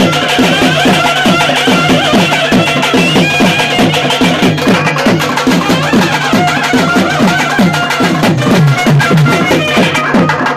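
South Indian temple festival drum ensemble of stick-beaten barrel drums playing a fast, steady beat of about four strokes a second, each stroke falling in pitch, with high held tones from a reed-like wind instrument over it.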